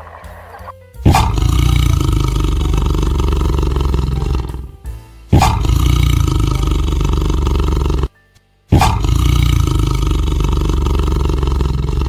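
Tiger roaring: three long roars, each starting suddenly, with short breaks between them.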